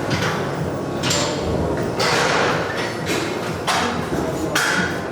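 Repeated knocks and mechanical clatter over a steady low hum, a new burst of noise roughly every second.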